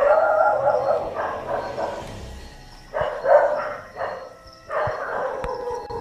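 An animal howling in a low-quality field recording: three long, wavering howls, one already going as the sound begins, another about three seconds in, and a third near the end.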